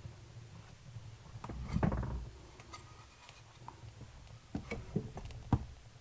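Split firewood being laid by hand into a wood stove's firebox: a dull clatter about two seconds in, then several sharp wooden knocks near the end as pieces are set against one another.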